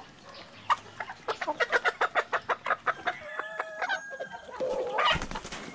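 A flock of native chickens clucking in quick short calls while feeding, with a few longer held calls in the middle and one louder drawn-out squawk near the end.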